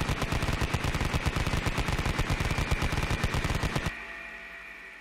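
A rapid, even train of sharp clicks with low thumps, about ten a second, over a steady high tone. The clicks stop abruptly about four seconds in, and the tone fades away after.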